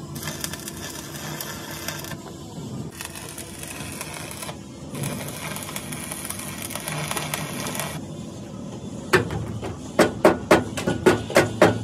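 Steady workshop noise that changes abruptly several times, then about eight sharp knocks near the end, two to three a second.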